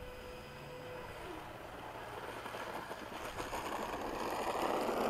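Electric ducted fan of an RC jet (5-blade, 64mm) running: a steady whine falls away about a second in, then a rushing whoosh builds steadily louder as it is throttled up for taxiing.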